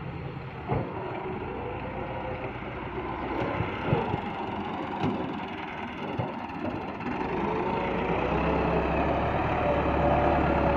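Massey Ferguson 385 tractor's diesel engine running as it works loose soil with its front blade, with a few short clunks. The engine grows louder and heavier in the last few seconds.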